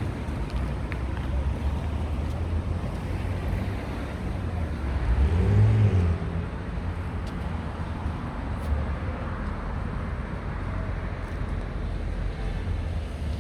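Road traffic: a steady rumble of vehicles, with one vehicle's engine passing close and loudest about halfway through.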